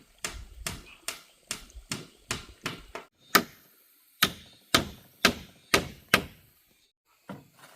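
Repeated sharp blows of a hand tool, about two to three a second, the strikes growing louder and more widely spaced about halfway through, with a short pause near the end.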